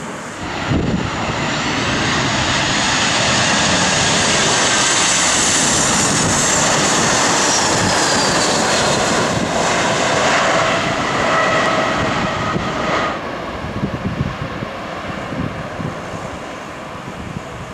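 Boeing 737-800's CFM56 turbofan engines running as the airliner lands close by. The jet roar builds about a second in, and the engines' high whine falls in pitch as the plane passes. The sound drops off sharply about thirteen seconds in as the aircraft rolls away down the runway.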